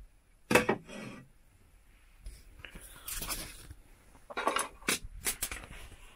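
Dishes and a small cooking pot being handled: a few knocks and clinks, the loudest about half a second in, a short scraping rustle about three seconds in, and a quick run of clicks near the end.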